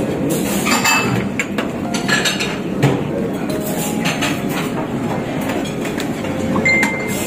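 Buffet dining-room clatter: plates and serving utensils clinking in short sharp strikes over a steady background din, with a brief high ring near the end.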